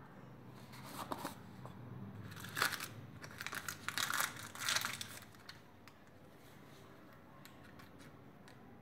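Plastic packaging crinkling and rustling as it is handled. There are several irregular bursts over the first five seconds, then it dies down.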